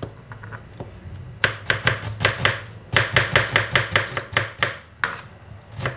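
Kitchen knife slicing an onion on a plastic cutting board: a run of quick knife strokes starts about a second and a half in, gets faster at about five or six strokes a second from about three seconds in, and ends with a couple of single strokes.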